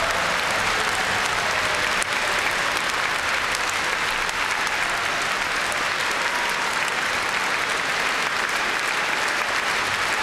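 A large crowd applauding steadily, a dense unbroken clapping.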